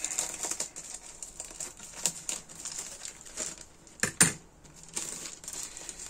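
Plastic model-kit sprues and their plastic bag being handled: crinkling and light clicking, with a couple of sharper clicks about two and four seconds in.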